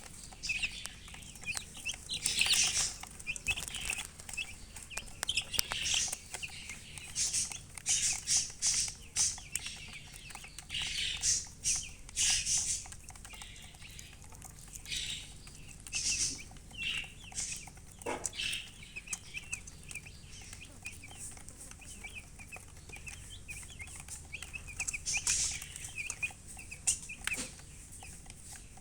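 Baby chicks chirping: many short, high-pitched peeps in quick irregular bunches, with one lower call about 18 seconds in that falls in pitch.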